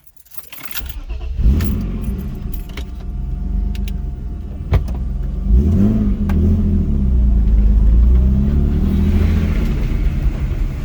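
BMW E36 drift car's engine starting up about a second in and then running, with a brief rise in revs around six seconds in as the car pulls forward. There are a few sharp clicks over it.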